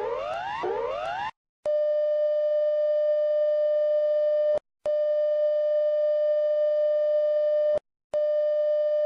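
Synthetic emergency-alert tones of a mock Emergency Alert System broadcast. Repeated rising whooping sweeps stop about a second in. After a brief silence, a steady buzzy attention tone sounds in blasts of about three seconds, separated by short breaks.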